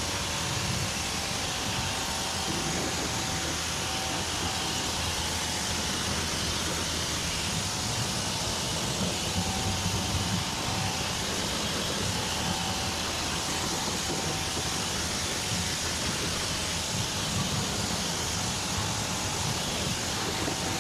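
Pressure washer spray rinsing a car's engine bay: a steady, unbroken hiss of high-pressure water striking the engine components.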